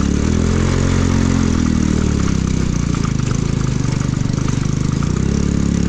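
Motorcycle engine running under way, its note rising and falling slightly with the throttle.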